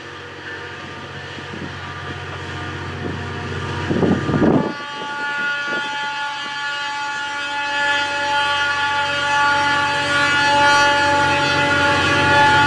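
FEPASA diesel-electric locomotive D-2353 running as it approaches, then sounding its air horn in one long blast from about five seconds in, growing louder as the train nears. A brief rush of noise comes just before the horn starts.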